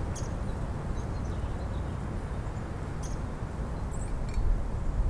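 Outdoor ambience: a steady low rumble of wind on the microphone, with a few faint, brief bird chirps.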